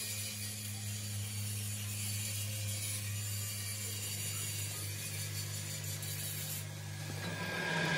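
A steady low machine hum with a hiss above it. The hum's pitch shifts about halfway through, and the hiss drops away near the end.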